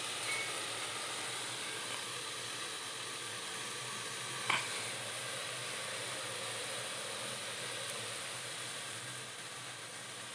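Seawater boiling hard in a steel pot over a gas burner: a steady hissing sizzle as the last shallow layer of water boils down and salt crystallises. A single sharp pop about four and a half seconds in.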